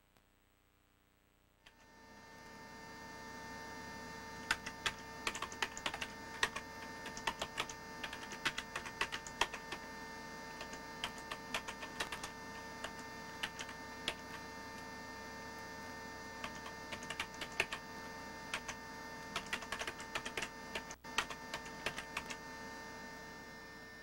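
Typing on a computer keyboard: irregular key clicks over a steady electrical hum. The hum comes in about two seconds in and the typing starts a few seconds later.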